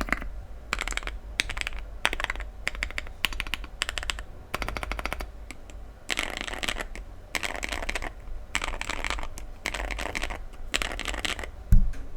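Mechanical keyboard being typed on in quick bursts of rapid keystrokes with short pauses between them, the switches giving a poppy, clacky sound. Near the end there is a single louder low thump.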